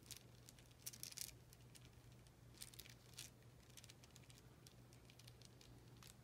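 Faint clicks of a string of rudraksha seed beads being handled, the dry beads knocking together a few times about a second in and again around three seconds; otherwise near silence with a low steady hum.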